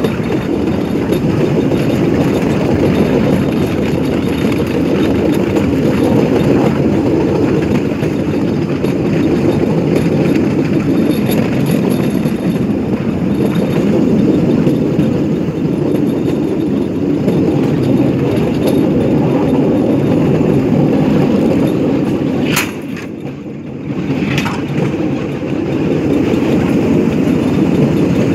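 Bamboo train (norry) running along the rails, a loud steady rumble of its motor and wheels on the track. Late on it briefly goes quieter, between two sharp clicks.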